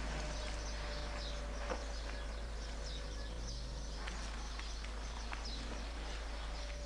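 Quiet outdoor ambience with birds giving short, high, falling chirps every second or two over a faint steady hum, and one small click about 1.7 seconds in.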